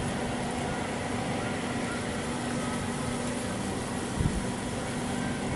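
Steady mechanical hum over a broad rushing noise, with one short low thump about four seconds in.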